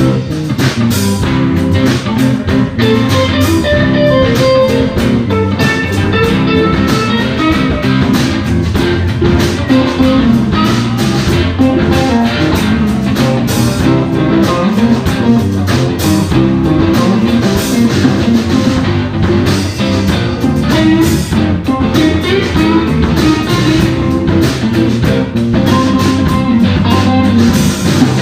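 Live blues band playing an instrumental passage: electric guitars carry the lead lines over bass guitar and a drum kit, continuous and loud.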